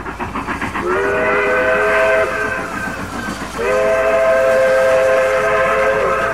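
Train whistle sounding two long blasts, each a chord of several tones, the second longer, over a fast rhythmic chugging of a moving train.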